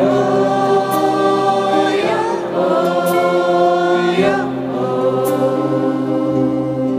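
A man sings a slow devotional chant in long held notes, changing pitch every two seconds or so, over acoustic guitar.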